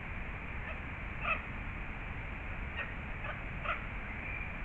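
Japanese red fox giving about four short, high calls, the loudest about a second in and the rest close together near the end, over a steady low background hiss.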